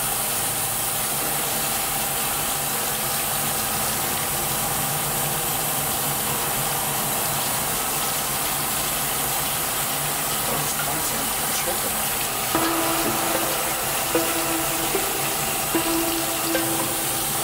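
Water running steadily from a bathroom sink faucet, splashing over gloved hands and a mouse as it is rinsed. A few short pitched tones come and go over the last few seconds.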